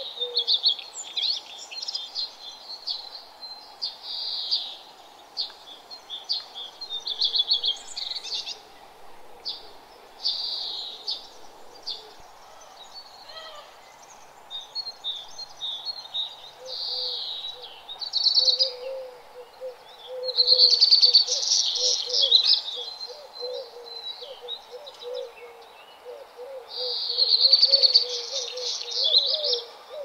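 Birds chirping and singing: short high-pitched phrases one after another, with the loudest bursts in the second half. About halfway through, a lower, rapidly repeated call joins in.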